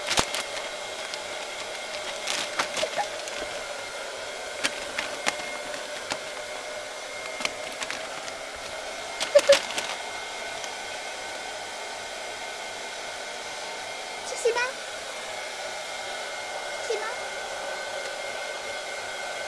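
A thin plastic carrier bag crinkling in short, scattered crackles as a cat paws at it and pushes into it, the loudest about halfway through. Under it runs a steady machine hum.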